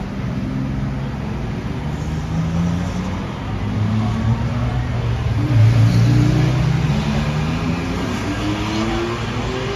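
Historic sports cars accelerating past one after another, among them a classic Porsche 911 with its air-cooled flat-six, the engine pitch rising as each pulls away. The loudest pass comes about six seconds in.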